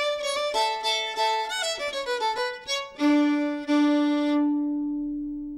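Title music on violin: a quick run of short notes, then one long low note held and fading away near the end.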